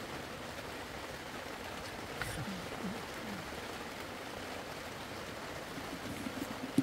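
Steady, even hiss of rain falling on the canvas tent. A couple of brief voice sounds come about two and a half to three seconds in, and a short knock near the end.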